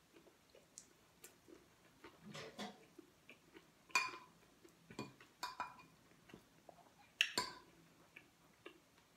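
Metal spoon and fork clinking and scraping on a ceramic plate as food is scooped up: faint scattered clinks, the sharpest about four seconds in and again about seven seconds in.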